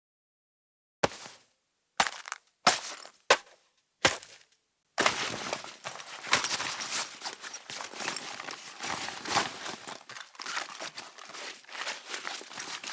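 Cartoon cloth sound effects: five short, sharp fabric swishes about a second apart, then from about five seconds in a continuous fabric rustling that rises and falls.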